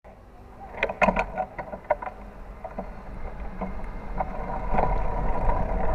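A bicycle on the move: a few knocks and rattles about a second in, then a rush of wind and tyre noise that grows steadily louder.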